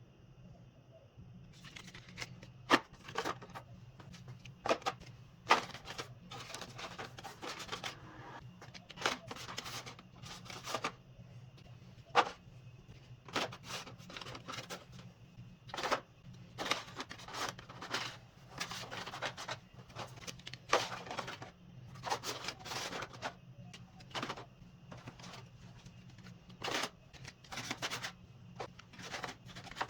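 Irregular clicks, taps and short rustles of small packaged items being handled and set onto shelves, over a steady low hum.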